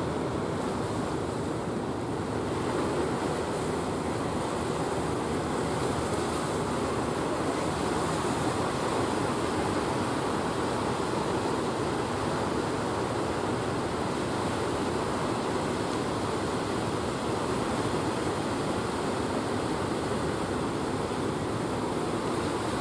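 Steady wash of sea surf rolling onto the shore.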